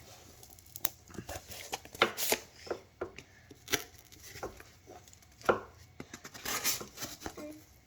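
Scissors cutting through cardboard: a string of irregular sharp snips, the clearest about two, three and a half and five and a half seconds in.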